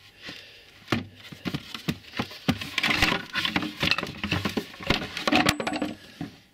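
Stacked chipboard and furniture-board panels handled and shifted, knocking and scraping against one another in irregular clatters.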